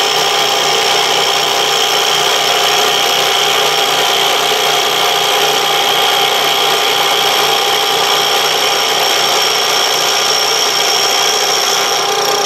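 Vertical milling machine side-milling the rough-sawn edge of a half-inch aluminum plate with an end mill: a steady cutting whine with several constant high tones over the spindle's low hum as the table feeds the plate past the cutter.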